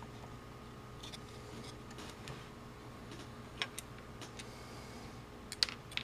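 Small plastic clicks and taps as the parts of a disassembled multimeter, its circuit board and its plastic case, are handled, over a faint steady hum. The sharpest clicks come a little past halfway and again near the end.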